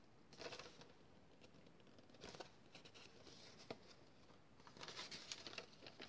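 Faint rustling and crinkling of cardstock and glued paper handled between the fingers, in a few short bursts, the longest near the end.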